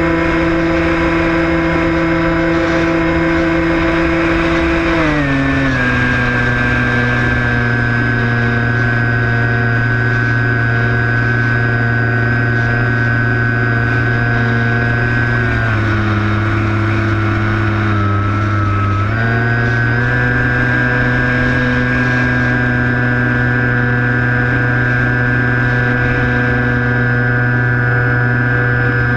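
Brushless electric motor and propeller of a Skywalker 1680 RC plane, heard from the aircraft, droning steadily at throttle. Its pitch steps down about five seconds in, dips lower a little past halfway, then rises again a few seconds later as the throttle changes.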